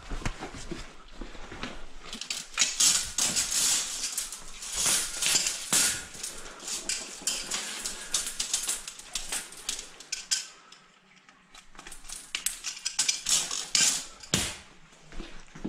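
Coiled steel drain-snake cable for an Electric Eel Model C clinking and rattling as it is handled and dragged across a concrete floor, with a short lull about two-thirds of the way through.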